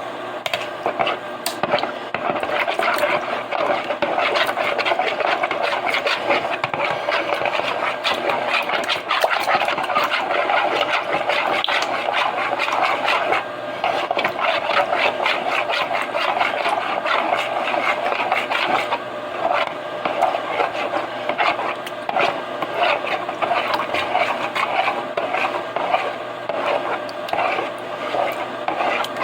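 A utensil stirring and scraping round a small mixing bowl, blending tomato paste with water in quick, continuous strokes.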